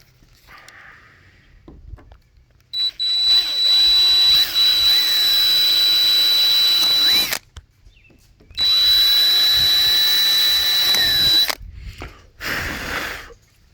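Handheld power tool running in two long bursts of about four and three seconds with a steady high whine, then a brief third burst, as it works on the plastic bumper latch brackets.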